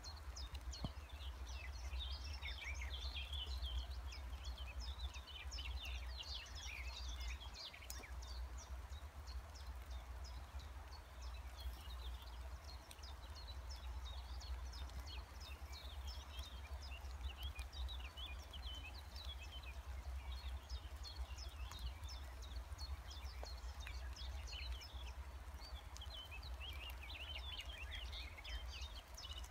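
Small songbirds chirping and singing in repeated bursts of short, quick notes, over a steady low rumble.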